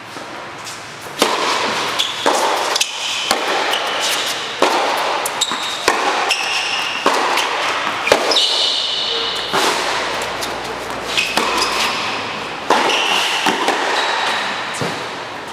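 Tennis ball struck back and forth with racquets in a singles rally, a hit about every second starting with the serve about a second in, with short high squeaks between shots. The hits echo in a large indoor court hall.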